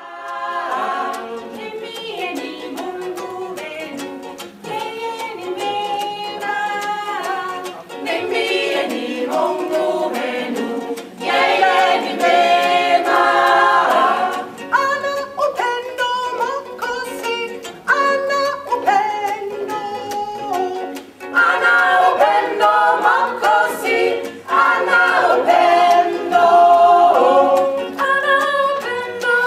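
A women's choir singing together, accompanied by a strummed guitar.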